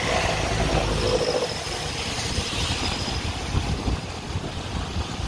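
Steady engine and road noise from a vehicle moving along a wet road, with wind rumbling on the microphone.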